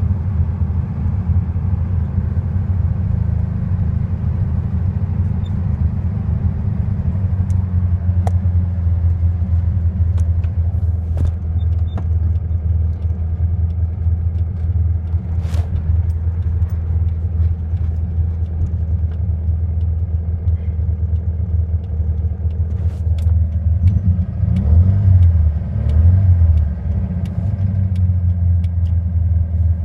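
Volkswagen Beetle's air-cooled flat-four engine running with a steady low rumble and a few sharp clicks. Its speed rises and falls unevenly for a few seconds near the end. The engine has a hesitation and misfire.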